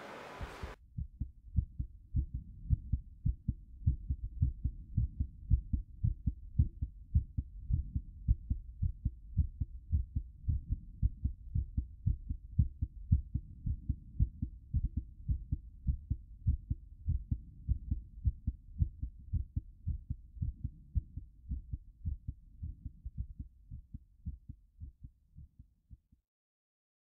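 Heartbeat sound effect: a steady, low, muffled pulse of beats that fades out and stops near the end.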